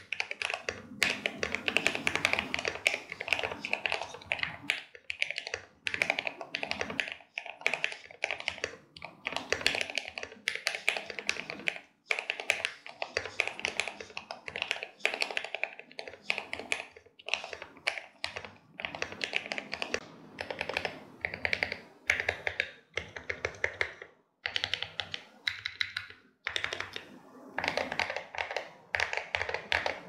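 Fast typing on lubed Gateron CJ linear switches, with POM stems and bottom housings, in an aluminium-plate Glorious GMMK Pro. The keystrokes come in quick runs broken by brief pauses.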